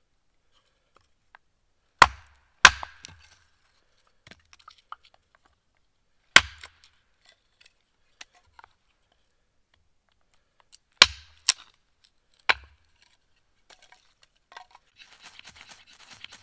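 Hatchet splitting wood on a wooden chopping block: six sharp chops in three groups, the blade biting and the wood cracking apart. Near the end comes a short spell of faint scratchy rustling.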